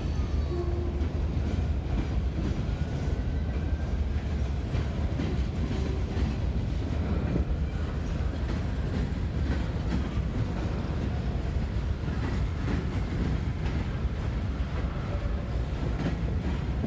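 CSX freight train's hopper cars rolling slowly past: a steady rumble of steel wheels on the rails with a clickety-clack over the rail joints.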